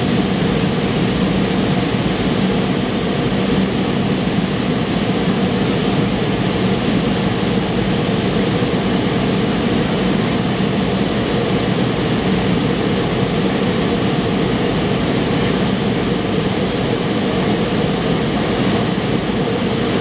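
Steady cabin noise inside a McDonnell Douglas MD-88 climbing out after takeoff: the rush of air and the drone of its rear-mounted Pratt & Whitney JT8D turbofans, with a low, even hum.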